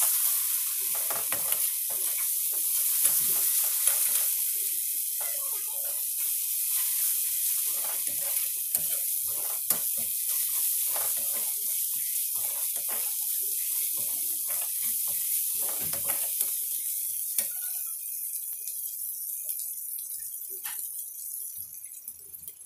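Wet spice paste (masala) sizzling as it fries in oil in a kadai, with a metal slotted spoon scraping and knocking against the pan as it is stirred. The sizzling dies down over the last few seconds.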